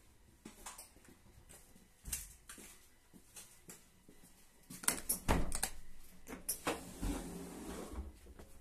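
Footsteps and light knocks of someone walking through a passenger train's vestibule, with a louder clatter of several knocks and bangs about five seconds in, followed by a low steady hum.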